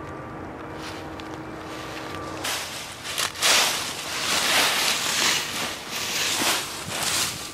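Footsteps crunching through deep dry fallen leaves, in loud irregular strides starting about two and a half seconds in. Before them, a faint steady distant engine drone.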